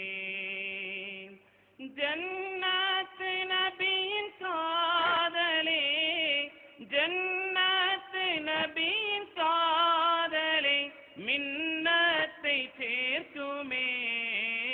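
One voice singing an Urdu naat, a devotional song in praise of the Prophet, with long held notes that bend and waver in ornamented runs. There is a short pause about a second and a half in.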